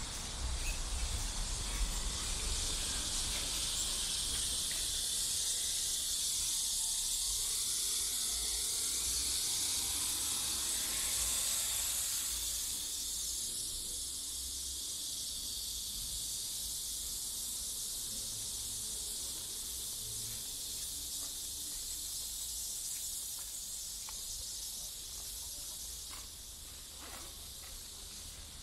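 Chorus of cicadas: a steady, high buzzing hiss from many insects at once, easing slightly in the last few seconds.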